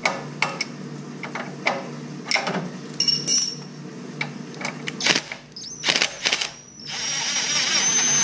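A few metal clicks and clinks of a wrench on the stud nuts, then a cordless drill with a socket on it runs in short bursts and, about seven seconds in, spins steadily with a high whine, backing a rocker arm stud out of a Cushman OMC engine's head.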